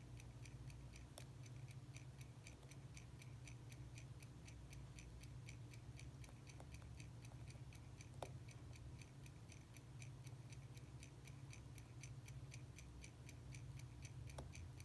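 Faint, rapid, even ticking of a mechanical timepiece, about five ticks a second, over a low steady hum. A single small tool click sounds about eight seconds in.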